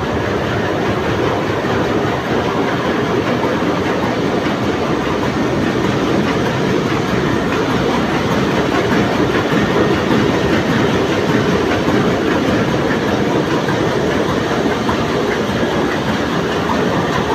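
Loud, steady din of a ship's engine room, with machinery running continuously.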